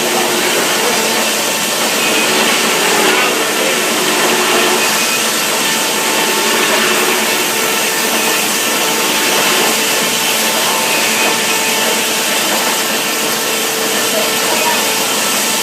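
Sawmill saw running steadily: a loud, even mechanical noise with faint steady whining tones through it.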